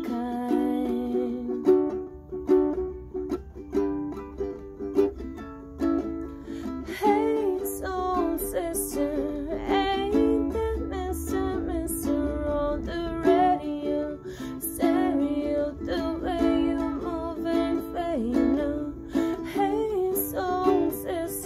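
Ukulele strummed in a steady rhythm, with a woman's voice singing a wavering melody over it.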